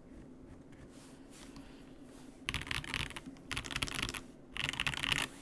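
Akko 5075S gasket-mount mechanical keyboard with stock Akko CS Crystal switches being typed on. There are three quick bursts of keystrokes in the second half, after a quiet stretch.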